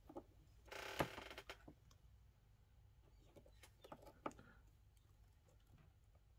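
Faint handling noises: a short rustle with a sharp click about a second in, then a few light clicks and taps as multimeter probes are picked up and set against the terminals of a plastic-cased 18650 battery pack.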